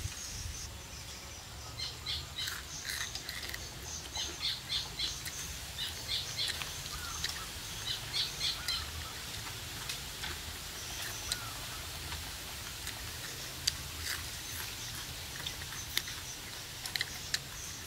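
Small birds chirping in quick clusters of short, high notes, with a few sharp crisp clicks later on.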